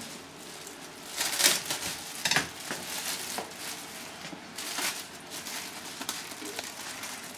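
Thin plastic bag crinkling and rustling in irregular bursts as a whole raw fish is handled and unwrapped from it, loudest about a second and a half in.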